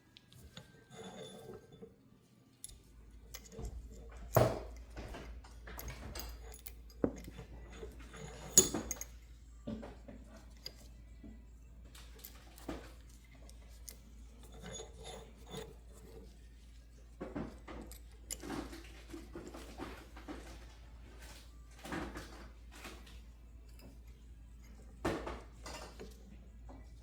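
Metal parts and hand tools clinking and knocking at irregular intervals, with a few sharper knocks, over a steady low hum that comes in about three seconds in.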